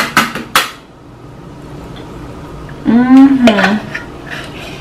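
A quick run of sharp clacks of kitchen utensils against a container in the first second, as cookie dough is worked out of a plastic tub into a pan. About three seconds in, a woman makes a short wordless hum whose pitch rises and falls, followed by faint scraping of dough in the tub.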